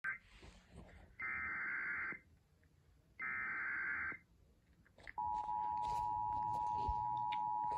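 Emergency Alert System header: two bursts of screeching digital data tones, about a second each and two seconds apart, then about five seconds in the steady two-tone EAS attention signal starts and holds.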